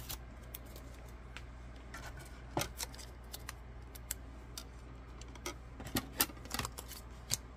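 Light, scattered clicks and taps of a thin metal cutting die and cardstock being handled and laid on a clear acrylic cutting plate, over a low steady hum.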